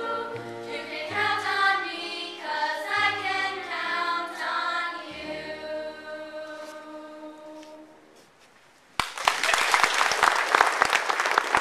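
Girls' chorus singing the closing phrases of a song with piano accompaniment, the last held note fading away. After a moment of quiet, applause breaks out suddenly near the end.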